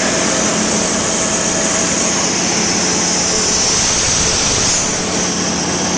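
1972 Onan 30EK genset's Ford four-cylinder engine running steadily on wood gas from a gasifier fed through a homemade carburetor, with a high hiss over the engine note that swells about four seconds in and then eases.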